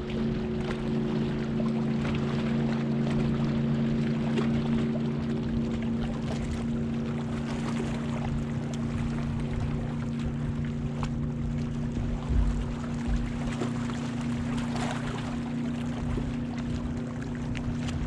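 Boat motor running with a steady hum over the noise of water and wind.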